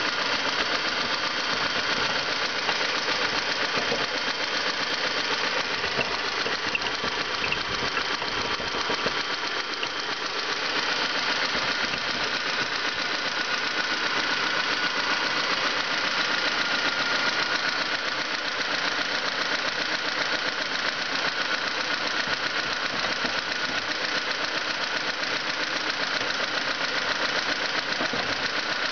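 1989 Honda Civic 1.4 GL's dual-carburettor four-cylinder engine running steadily at idle, with an odd noise in it that the owner cannot identify. The level dips slightly about ten seconds in.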